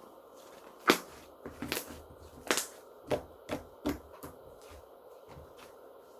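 Slime being handled and pressed by hand, giving a run of about eight sharp clicks and pops over three seconds, the loudest about a second in.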